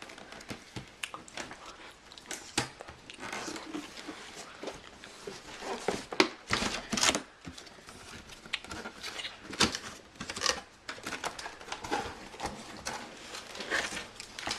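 Packing paper crinkling and tearing, with scattered light knocks, as a boxed scooter is unpacked.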